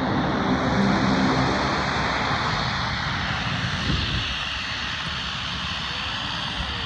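Jet engines of a four-engined airliner running close by as it taxis. A steady low hum of several tones is strongest in the first two seconds, and the sound eases slightly after about four seconds.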